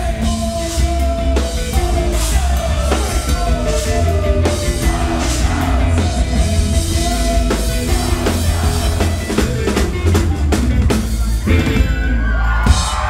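Rock music with drum kit, heavy bass and a sung vocal line. It cuts off abruptly just before the end, giving way to crowd noise.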